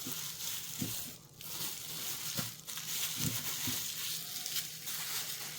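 Plastic packaging wrap crinkling and rustling as it is handled, with short pauses.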